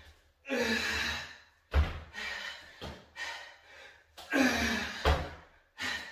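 A man breathing hard and gasping in loud, separate breaths during a strenuous plank exercise, some exhales voiced like groans. Two dull thumps land about two and five seconds in.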